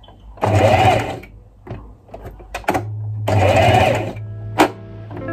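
Singer Heavy Duty electric sewing machine stitching in two short runs of about a second each, its motor humming under the rapid needle clatter, with a few sharp clicks between and after the runs.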